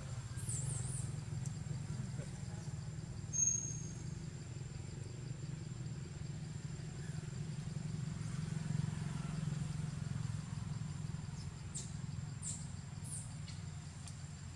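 Steady low hum of a distant engine, with a few short high bird chirps near the start and again near the end, and a brief high whistle about three and a half seconds in.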